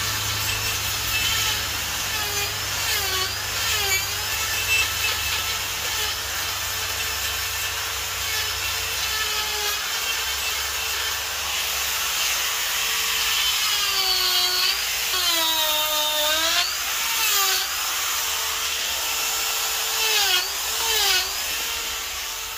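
Electric die grinder with a carving burr cutting into wood: a steady high motor whine whose pitch dips each time the burr bites harder and the motor slows under load, most deeply about two-thirds of the way through, then recovers.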